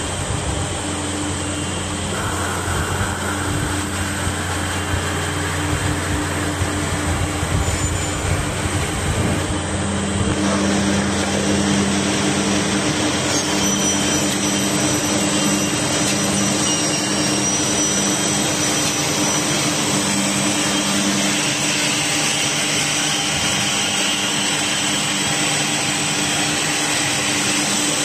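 F371 soft-forming automatic edge banding machine running: a steady mechanical drone with a constant hum, a little louder from about ten seconds in.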